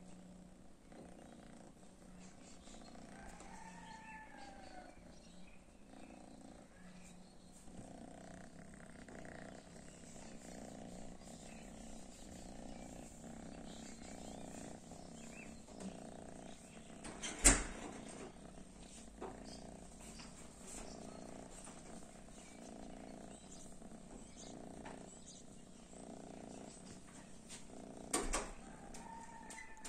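Domestic cat purring softly and steadily, with a sharp knock about halfway through and another near the end.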